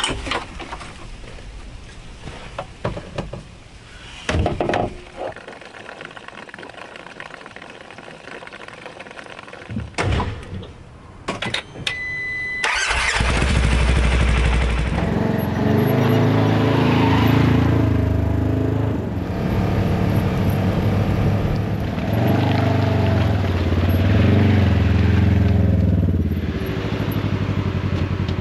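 Gear and a door clattering in the cab of a Polaris General side-by-side, then about halfway through its engine starts and runs, revving up and down several times as it drives, settling to a steadier run near the end.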